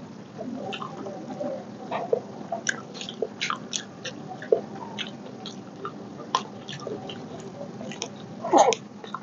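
Close-up mouth sounds of someone chewing a mouthful of rice and fish curry, with wet clicks and smacks scattered through, and the squish of fingers mixing rice on the plate. A louder cluster of smacks comes about eight and a half seconds in.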